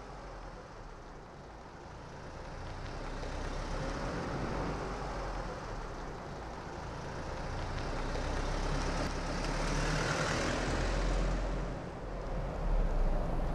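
Volkswagen Golf GTI, a turbocharged four-cylinder hatchback, driving at low speed on pavement. Its engine and tyre noise grows louder over the first few seconds as it comes near, and is loudest in the second half.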